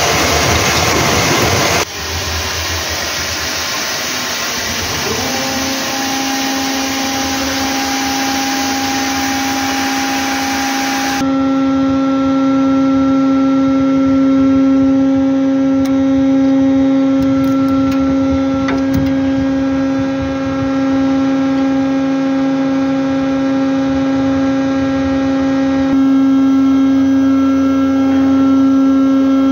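Ship's mooring winch motor running with a steady hum and a whine, coming in about five seconds in over a rushing noise.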